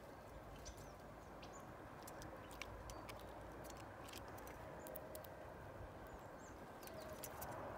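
Faint, irregular clicking and scratching of a Eurasian red squirrel rummaging in a perforated metal feeder box and handling seeds, over a low steady outdoor hiss, with a few faint high bird chirps.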